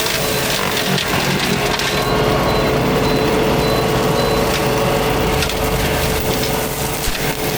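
Fecon forestry mulcher head grinding and splintering brush and small trees, with a steady machine hum and sharp wood cracks now and then.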